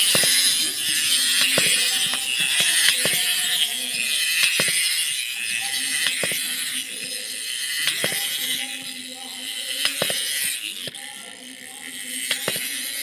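Plastic wind-up hopping monkey toy running: a steady high whirr from its clockwork gears, with its feet knocking on the surface at uneven intervals. The whirr fades over the last few seconds.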